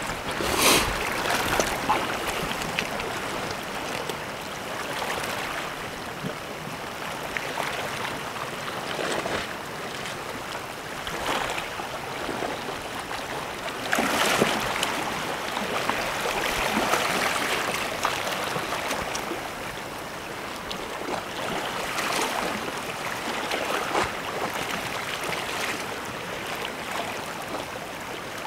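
Sea waves washing against the shore: a steady hiss that swells and fades every few seconds.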